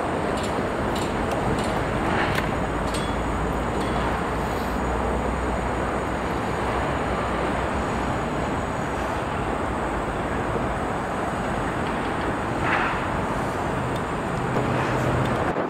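Steady road-traffic and engine noise, with a low engine hum coming in for a few seconds and a few faint clicks and knocks.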